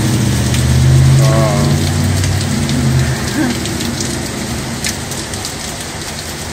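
Small hailstones falling steadily, a hiss of hail dotted with many sharp ticks of stones landing, easing off as it goes. A vehicle engine drones low under it for the first three seconds.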